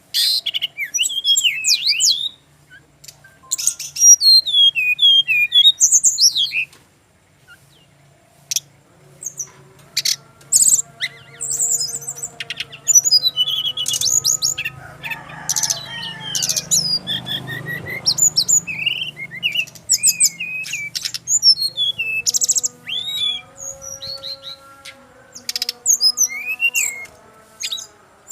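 Brown-chested jungle flycatcher singing: bursts of quick, high whistled phrases and trills, broken by short pauses, over a faint low hum.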